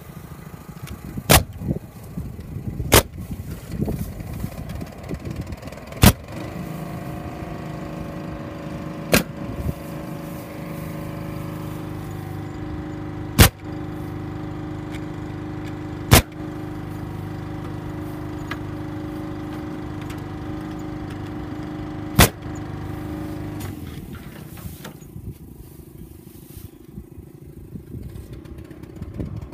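Pneumatic Stockade fence stapler firing staples into a wooden fence post: seven sharp shots, a few seconds apart. A steady machine hum runs underneath from about seven seconds in until about 24 seconds.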